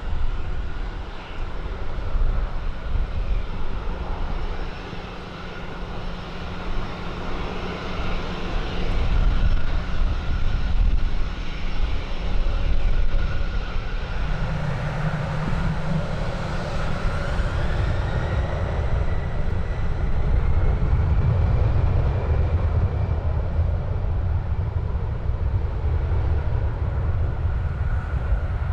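Aircraft engines running: a steady turbine whine over a heavy low rumble. About two-thirds of the way in, a second whine slides upward in pitch.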